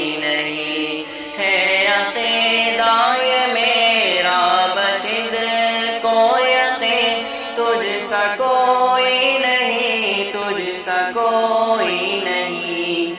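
Devotional naat singing in a chant-like style: a male voice holding long notes that bend up and down in pitch.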